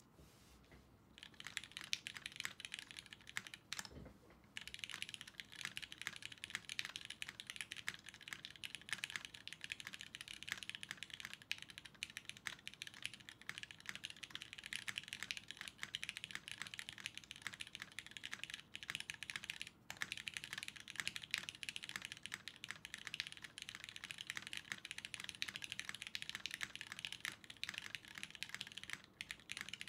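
Fast, continuous typing on a custom 60% all-aluminium mechanical keyboard with a stainless steel bottom weight and GMK Coral keycaps, in a timed typing test at about 140 words per minute. The keystrokes start about a second in, pause briefly near four seconds, then run on without a break.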